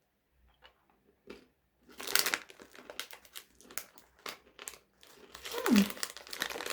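Crinkling of a plastic snack wrapper, a run of sharp rustles starting about two seconds in and growing denser near the end.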